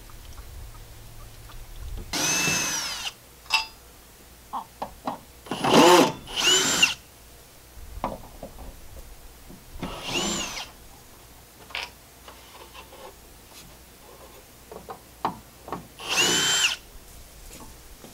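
Power drill run in five short bursts, each whine rising and falling in pitch as it spins up and stops, with small clicks and knocks in between: driving screws out to take a base off a wooden deck.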